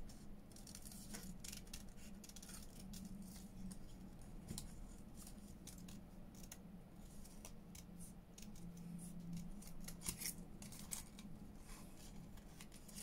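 Small scissors cutting paper in a run of quick, irregular snips, trimming close around a shape, with a faint steady hum underneath.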